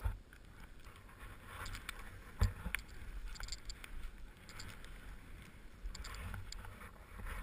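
Skis hissing through deep powder snow, with wind rumbling on a helmet-mounted camera's microphone. A sharp thump about two and a half seconds in.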